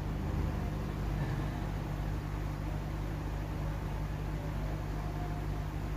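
Steady low hum with a faint hiss underneath: constant background noise.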